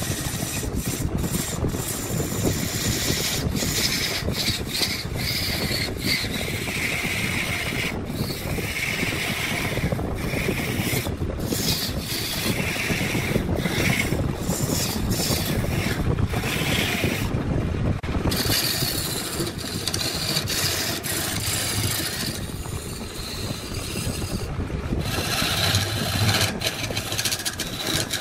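A woodworking tool rubbing and rasping against wood in irregular strokes, over the steady noise of a running machine.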